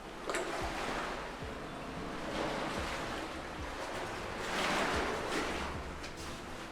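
Surf washing onto a beach, swelling and easing in waves, loudest about two and a half and four and a half seconds in, with wind rumbling on the microphone.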